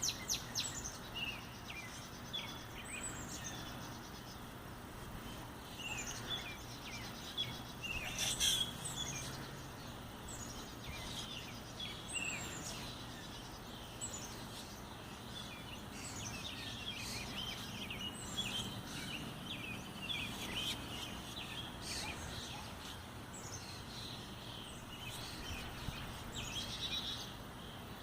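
Small songbirds chirping: many short, high chirps scattered throughout, over a steady outdoor background hiss, with a louder burst about eight seconds in.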